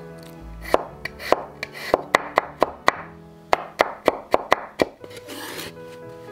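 A kitchen knife chopping garlic on a wooden cutting board: a quick run of sharp knocks, about three to four a second, over soft background music.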